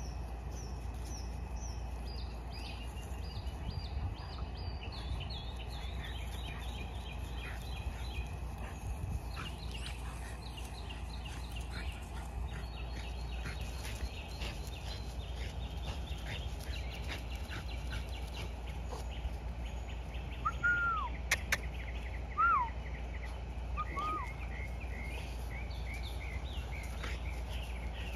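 Wild birds chirping and singing in quick runs of repeated high notes over a steady low background hum. About two-thirds through, three short, clearer arched calls stand out, with a sharp click among them.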